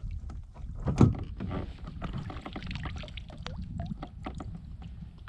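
Knocks and clatter of handling on a fishing kayak, with one louder thump about a second in, over a low steady rumble.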